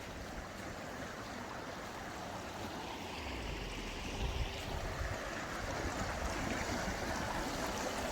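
Steady rushing of a warm stream and small waterfall, growing slightly louder over the span.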